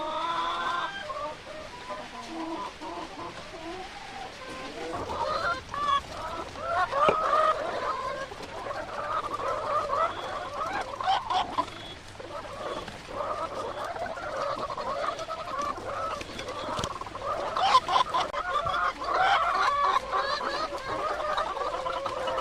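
A flock of laying hens clucking, many birds calling over one another without a break, with a few sharp knocks mixed in.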